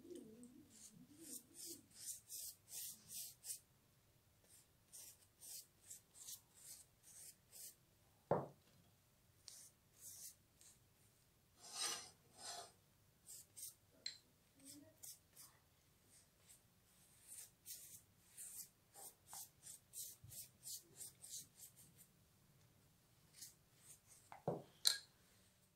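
Faint, quick scratching strokes, two or three a second, as sugar syrup is dabbed and brushed over the crust of a baked chocolate cake with a small utensil. There is a light knock about eight seconds in and another near the end.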